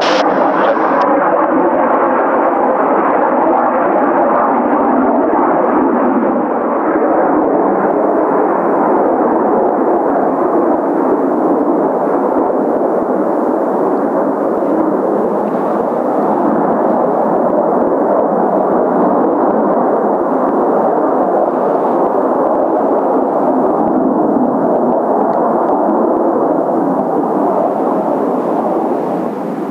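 Jet engine roar from Blue Impulse Kawasaki T-4 jets taking off, a loud steady rumbling roar that eases just before the end.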